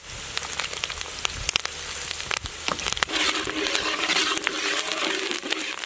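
Sliced onions, green chillies and curry leaves sizzling and crackling in hot oil in a large wok, stirred with a spatula. The sizzle grows louder about three seconds in.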